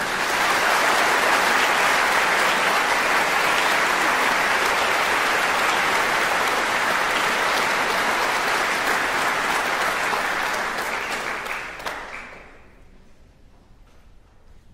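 Audience applauding after a live string quartet performance ends. The applause fades out about twelve seconds in.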